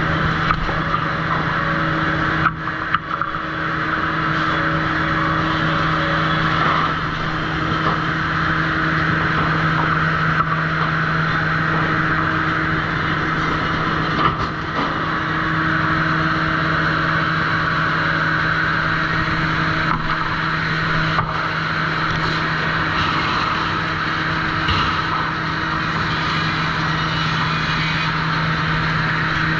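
Sawmill trim saw machinery running steadily: a constant low hum with a noisy mechanical whir over it, broken by a few sharp knocks.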